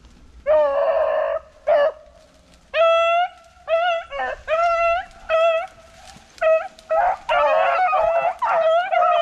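Beagles baying: a string of drawn-out bawls starting about half a second in, with voices overlapping near the end. It is the sound of hounds giving tongue as they run a rabbit's trail.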